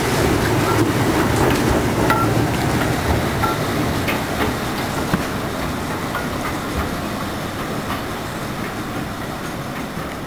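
Class 03 diesel shunter's Gardner eight-cylinder engine working as it pulls a coupled diesel multiple unit away, with occasional wheel clicks, the sound fading as the train draws off.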